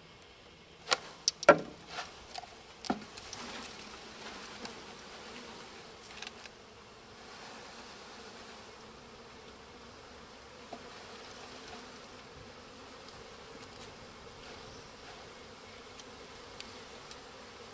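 A few sharp knocks within the first three seconds, the loudest about a second and a half in, then the steady hum of a mass of package honeybees being dumped into a hive box.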